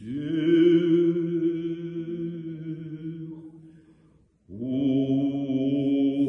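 Slow Orthodox church chant sung on long held notes. One note is held for about four seconds and fades away; after a brief pause a second held note begins.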